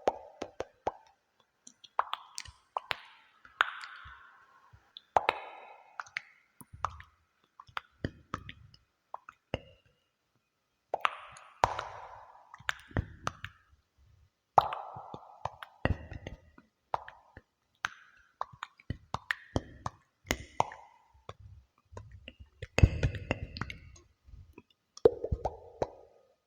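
ASMR trigger sounds: irregular soft plops, pops and clicks in small clusters, each with a short ringing tail from an added cave-like echo effect.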